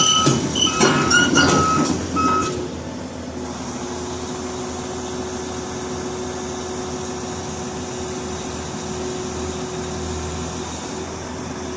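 Heavy-equipment backup alarm beeping in short repeated pulses over loud machine noise for the first couple of seconds. After that comes a steady heavy diesel engine running with a constant whine.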